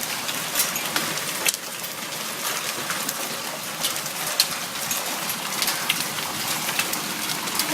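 Heavy hail falling with rain: a dense, steady, loud patter broken by sharp cracks as individual hailstones strike.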